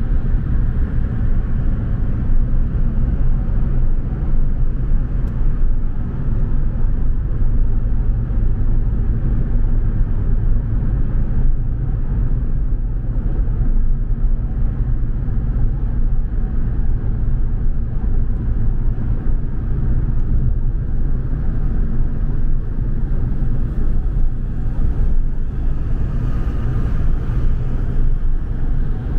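A car driving at a steady pace: a continuous low rumble of engine and tyres on the road.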